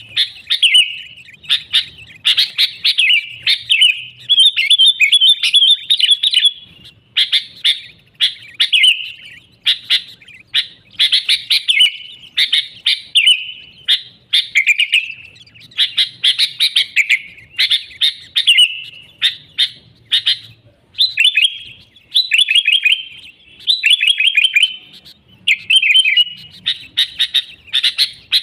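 Sooty-headed bulbul (kutilang) singing loudly and continuously: short phrases of quick notes, one after another with brief pauses.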